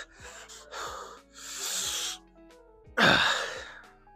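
A man's hard breathing while lifting dumbbells: a sharp, forceful exhale about three seconds in, with softer breaths before it. Background music with steady notes plays underneath.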